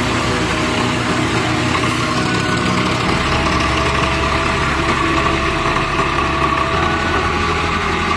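Swaraj 744 FE tractor's three-cylinder diesel engine running steadily as it drives a mustard thresher, with the thresher's drum whirring along with it.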